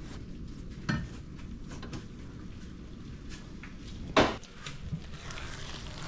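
A kitchen utensil knocking and scraping against a pan as angel hair noodles are stirred through a garlic butter sauce, with scattered light clicks and two sharper knocks, the loudest a little after four seconds in.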